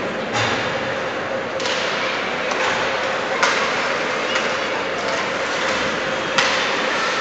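Ice hockey play in an echoing rink: about half a dozen sharp cracks of sticks on the puck and the puck off the boards, over a steady hum.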